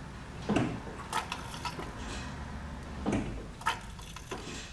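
Brake pedal being pumped to bleed the brakes through a speed bleeder: two dull knocks about two and a half seconds apart, with lighter clicks between them.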